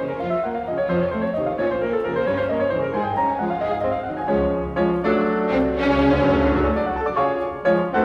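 Background classical-style instrumental music led by piano, with deeper bass notes coming in about halfway through.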